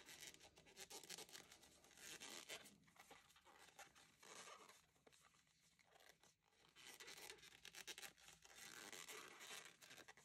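Faint scratchy rustling in irregular short bursts: a large crochet hook drawing t-shirt yarn through stitches.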